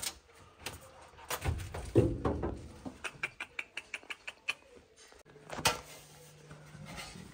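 Knocks, thumps and a quick run of sharp rattling clicks from galvanized sheet-metal duct pieces being handled and moved. A low steady hum comes in about five seconds in.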